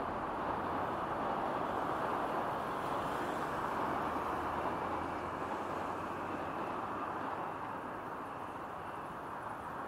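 Steady noise of slow-moving road traffic on a multi-lane street: car and van engines and tyres on the road, easing a little in the last few seconds.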